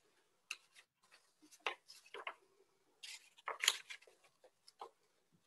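Faint, irregular small clicks and rustles, a dozen or so short handling noises, loudest about three and a half seconds in.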